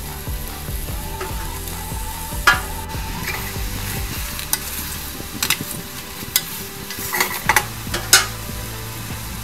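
Diced ratatouille vegetables sizzling in olive oil in a stainless steel saucepan while being stirred with a wooden spoon, with a handful of sharp knocks of the spoon against the pan, mostly in the second half.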